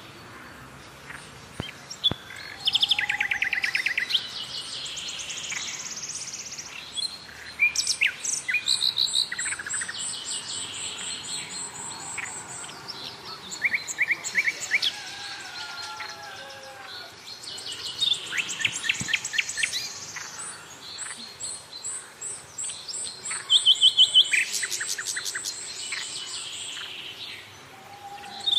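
Small birds chirping and calling in quick runs of rapidly repeated notes, several calls overlapping at times.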